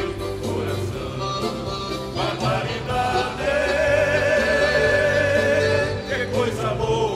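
Song with a voice over instrumental accompaniment and a steady bass line. A long note with vibrato is held through the middle.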